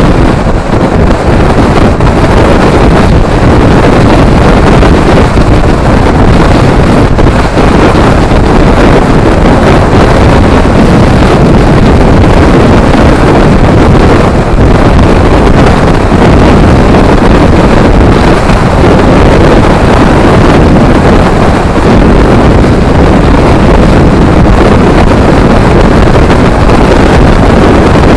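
Loud, steady wind rush buffeting the microphone of a camera on a moving motorcycle, mixed with the bike's running and road noise.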